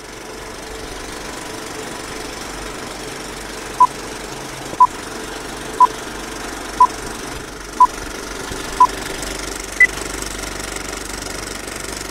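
Old film-projector countdown sound effect: a steady projector whirr and clatter. From about four seconds in, a short beep sounds once a second, six at the same pitch and then a final higher beep.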